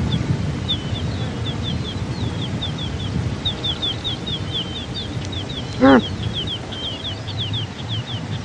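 Pronghorn giving one short, nasal call about six seconds in, over a steady background of high, rapid chirping and low wind rumble.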